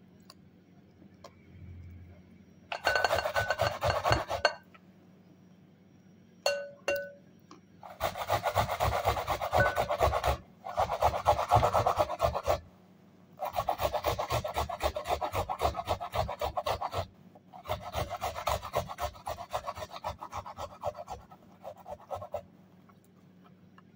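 An onion being grated on a fine metal hand grater: rapid rasping strokes in five runs, broken by short pauses.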